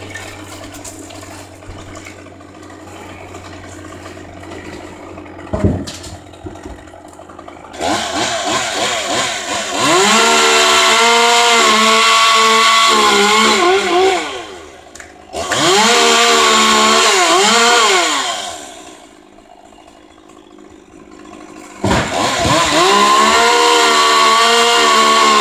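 Gas chainsaw cutting tree branches: it comes in about a third of the way through and runs at full throttle in three long bursts, its pitch dipping and recovering under the cut, dropping back to idle between them.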